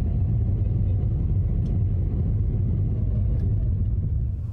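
Steady, loud low rumbling noise with no clear pitch, cutting off suddenly near the end.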